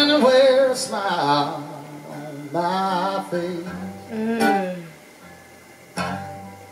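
A man singing a slow live blues-country song over acoustic guitar, in long phrases whose pitch bends and wavers, with a sharp guitar strum about six seconds in.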